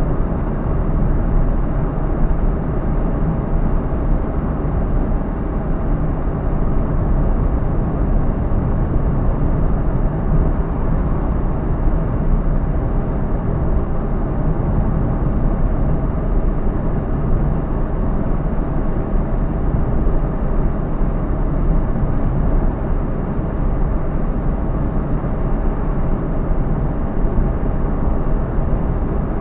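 Car driving along a road: steady engine and tyre noise, strongest at the low end, without a break or change.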